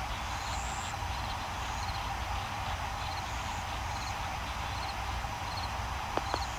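Steady outdoor background noise with a low rumble, overlaid by faint high chirps that repeat every second or so, and two light clicks near the end.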